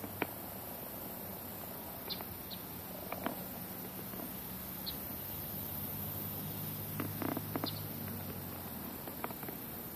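Quiet outdoor ambience at a pond's edge: a faint steady low hum with scattered light clicks and ticks.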